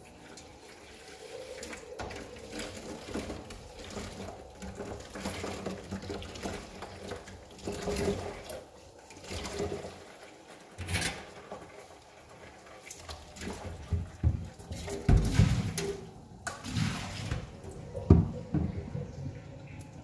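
Water running from a tap into a kitchen sink while dishes are washed by hand, with scattered knocks and clinks of dishes.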